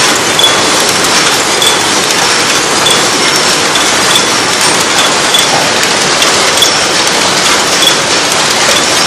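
Paper cup forming machine running: a loud, dense, steady mechanical clatter, with short high tones recurring through it every second or so.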